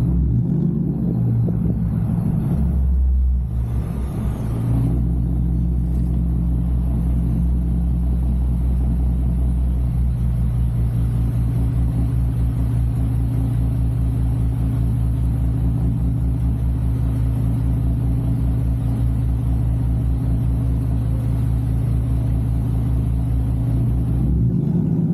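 Lexus IS 250's 2.5-litre V6 engine running on the move, a steady low drone with road rumble. About three seconds in, its note briefly changes before settling again.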